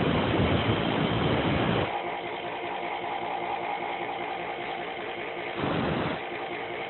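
A power grinder shaping a metal lock-pick blank. Loud grinding for about the first two seconds, then the motor runs on its own with a steady hum, and a brief touch of grinding comes near the end.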